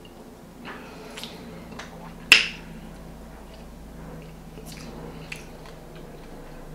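A person drinking from a glass mason jar: quiet sips and swallows with small mouth clicks, and one sharp, loud click about two seconds in.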